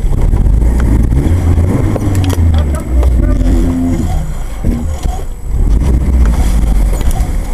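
Off-road 4x4's engine running with a loud low rumble that rises and falls as the vehicle moves, working to free a second 4x4 stuck on a log.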